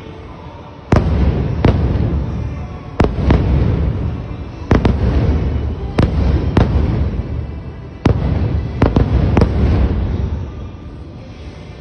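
Aerial firework shells bursting: about eleven sharp booms in quick, uneven succession, each followed by a rolling low rumble. The bursts stop about ten seconds in.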